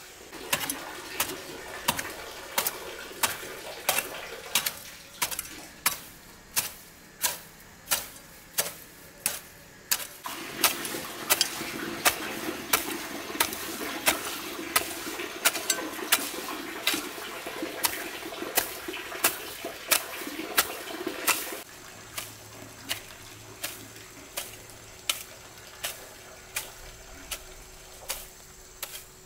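Repeated sharp blows of a hand tool, about three every two seconds, typical of chopping while building. A steady rushing noise sits behind the blows and drops away about two-thirds of the way through.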